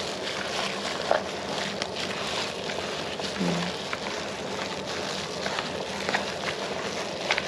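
A plastic-gloved hand squeezing and mixing a wet minced-pork filling with grated carrot and mushrooms in a plastic bowl: a steady wet squishing with small clicks and crinkles of the glove.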